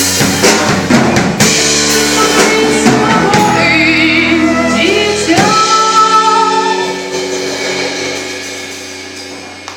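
Band playing live with drums and singing: a few drum hits, then held chords with a wavering lead line, ending on a final sustained chord that rings out and fades away.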